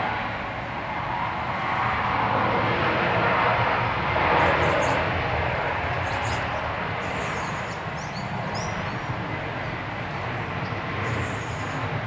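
Steady rush of distant traffic that swells for a few seconds and then eases. Small birds chirp high and briefly several times from about four seconds in.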